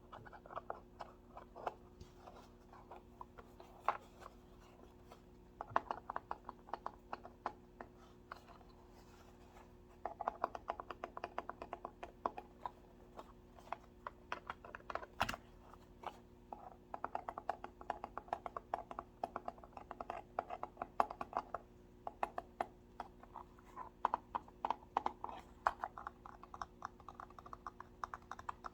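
Typing on a computer keyboard: runs of rapid key clicks broken by short pauses, with one sharper click about halfway through. A faint steady hum lies underneath.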